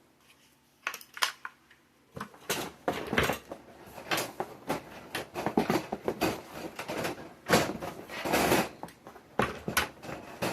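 Parts of a mini greenhouse kit handled and unpacked: irregular rustling, crinkling and clattering, starting about a second in and busy from about two seconds on, with a longer rustle a little past eight seconds.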